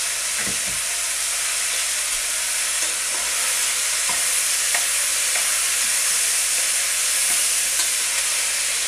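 Diced ham and onions sizzling steadily in hot oil in a nonstick pot, with a few light knocks and scrapes as a spatula stirs them.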